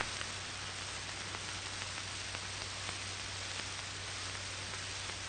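Steady hiss with a low hum underneath: the background noise of an old black-and-white film's soundtrack.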